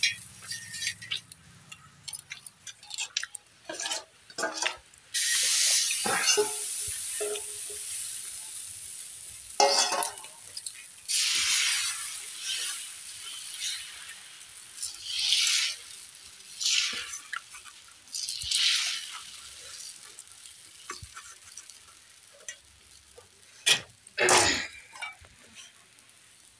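Close-up eating sounds of rice pancake (chakuli pitha) being bitten and chewed. There are repeated short bursts of hissing and a few light clicks and clinks.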